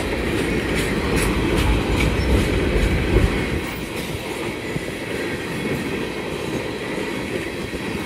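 A long freight train of tank cars rolling past close by: steady rumble of steel wheels on the rails with scattered clicks over the joints, the low rumble easing a little about three seconds in.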